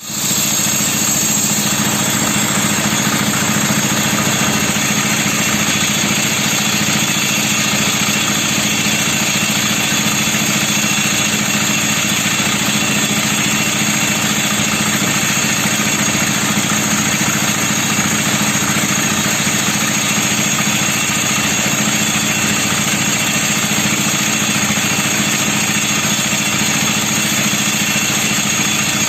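Portable concrete mixer's small engine running steadily at an even, unchanging speed.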